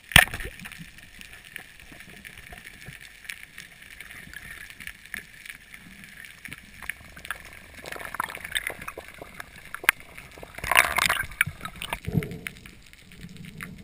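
A speargun fires underwater with a single sharp crack, followed by a steady fine crackling underwater. About eleven seconds in there is a louder rushing noise lasting about a second.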